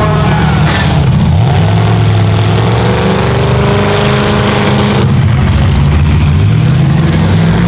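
Engines of several full-size pickup trucks running hard and revving, their pitch rising and falling as they accelerate and lift off.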